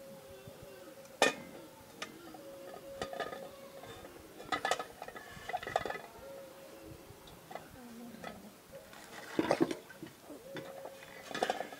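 Steel pots, bowls and a large metal wok clinking and knocking as they are handled and set on a gas burner, with one sharp knock about a second in and another cluster of clatter near the end.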